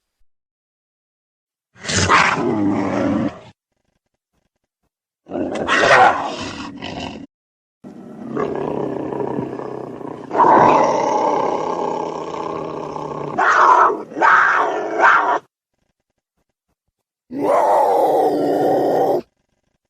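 Big-cat roar sound effects voicing an animated leopard: four separate roars with silences between them, the third drawn out for several seconds.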